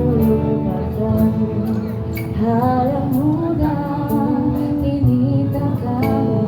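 Street band performing a song: a singer's voice carrying the melody over instrumental accompaniment with a steady beat.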